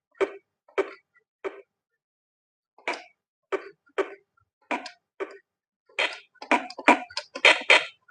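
Big Fun GY-430A1 toy electronic keyboard playing short preset sound samples as its upper function buttons are pressed one after another. Each press gives a brief sound, and the presses come faster and crowd together over the last two seconds.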